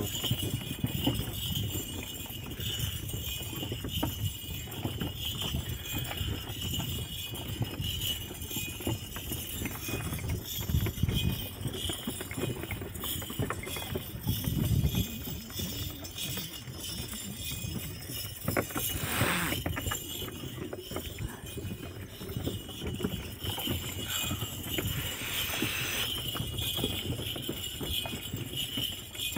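Camel-drawn wooden cart rolling along a dirt track: a steady rattle and jingle of harness and chains over the cart's knocking rumble, with the camel's footfalls.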